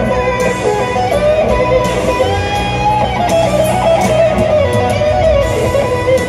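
Live rock band heard through an arena PA, led by an electric guitar solo on a gold Les Paul, with a melodic line full of bends and slides over bass, drums and keys.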